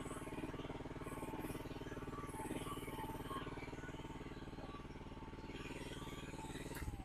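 Mini excavator engine idling steadily, then shut off at the very end, its firing slowing and fading as it runs down.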